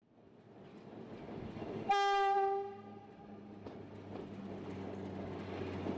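Diesel locomotive on a narrow-gauge factory line running with a steady engine hum, heard from its cab. About two seconds in it gives one short horn blast, a warning as it approaches a level crossing.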